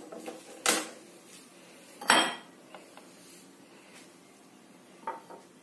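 A glass bowl knocked and clinked three times as hands tear bread slices into it. The loudest clink, about two seconds in, rings briefly.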